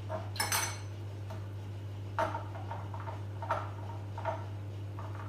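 Small drinking glasses and cutlery clinking on a kitchen counter as they are handled: a handful of separate sharp clinks about a second apart, over a steady low hum.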